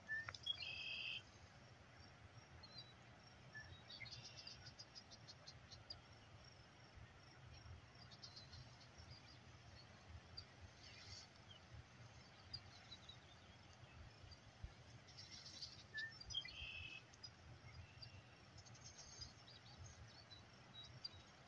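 Near silence outdoors: faint, scattered short high chirps and quick trills every few seconds over a faint low rumble.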